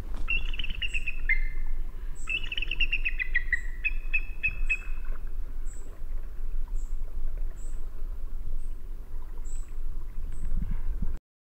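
Birds singing and calling: rapid phrases of notes that fall in pitch, and thin high chips repeating about once a second, over a steady low rumble. The sound cuts off suddenly near the end.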